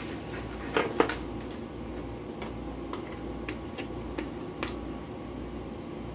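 Sharp clicks and light taps of a plastic butter tub and utensil as butter is scooped into a frying pan, the loudest two clicks about a second in, then scattered small ticks over a steady low hum.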